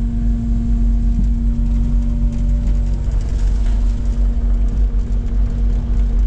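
Kubota KX compact excavator's diesel engine running steadily, a constant low rumble with a steady hum.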